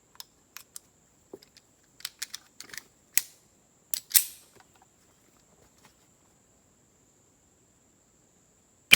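Irregular sharp metallic clicks and clacks from a Smith & Wesson CSX 9mm pistol being handled, the loudest a little past four seconds in. Right at the end comes a single gunshot.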